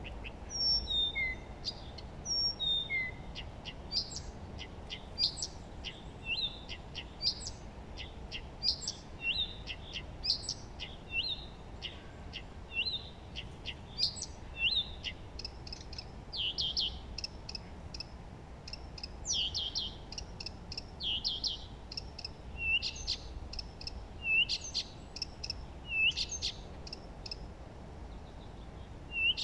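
Several songbirds singing at once: a busy chorus of short chirps, whistles and slurred notes, with a few quick downward-slurred calls repeated about once a second at the start.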